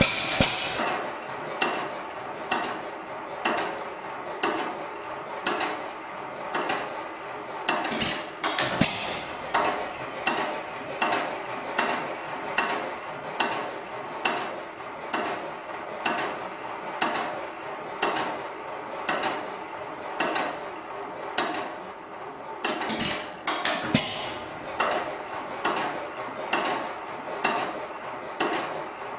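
Hit-and-miss stationary engine running, a steady clacking of about one and a half beats a second, with louder bursts about 8 seconds in and again about 23 seconds in.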